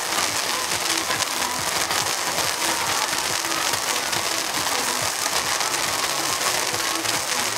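Many toy (consumer) fireworks going off together, a dense steady hiss of burning sparks with fine rapid crackle throughout.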